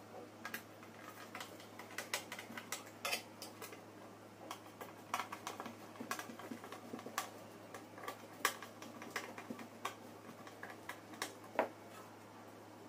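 Irregular light clicks and taps of a screwdriver and damp cloth working over the small plastic cooling fans of a PCP air compressor during cleaning. A faint steady low hum sits underneath, and the sharpest taps come about eight and a half and eleven and a half seconds in.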